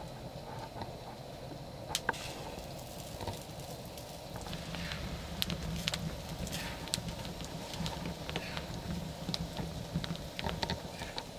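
Wood fire crackling under a grill grate: a steady low rumble of flames with scattered sharp pops and snaps, a few of them louder about two seconds in and through the second half.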